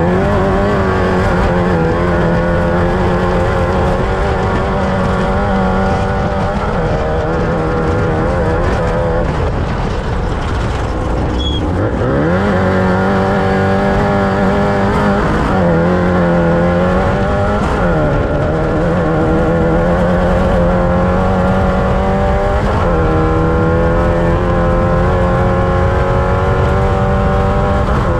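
Off-road race vehicle's engine running hard at speed. Its pitch falls and climbs back a few times through the middle stretch, then holds high again.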